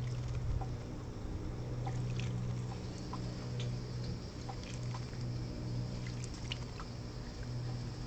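Gray catbird splashing and dripping water as it bathes in a shallow birdbath, a scatter of small splashes and drips over a steady low hum.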